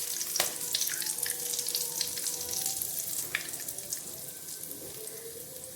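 Whole spices and a split dried red chilli sizzling and crackling in hot refined vegetable oil in a kadai, the tempering step of a curry. The pops thin out and the sizzle grows quieter toward the end.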